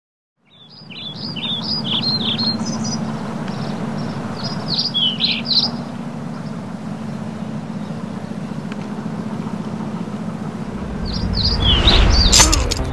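Small birds chirping in quick runs of short calls over a steady low hum. Near the end a deep rumble comes in and a loud swell of noise builds and peaks.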